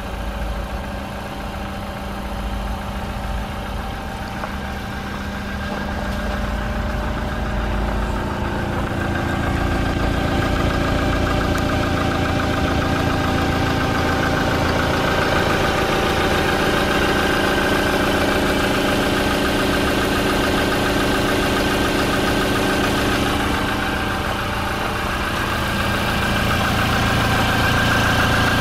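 Toyota Hilux's 2.8-litre four-cylinder turbodiesel idling steadily, heard close up from beneath the truck. It grows louder between about six and ten seconds in.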